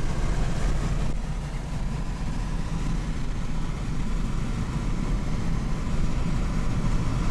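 Steady low rumble of a car's engine and road noise, heard from inside the moving vehicle's cabin.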